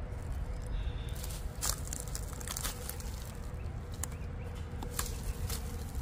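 Dry straw and dead leaves crackling and rustling in scattered clicks as a large watermelon is handled and turned over on the ground, over a low steady rumble.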